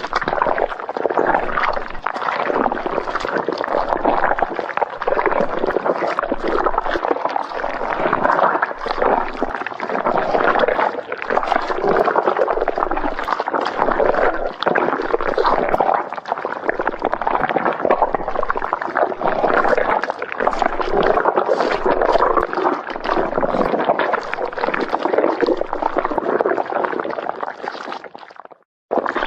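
Stomach growling: continuous loud gurgling and rumbling of digestion. It cuts out briefly just before the end, then resumes.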